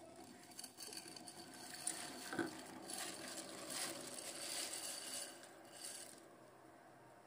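Dry fusilli pasta sliding and rattling out of a glass bowl and dropping into a pot of boiling water, with a couple of sharp clicks about two seconds in. The pour stops about six seconds in, leaving a softer steady hiss of the boiling water.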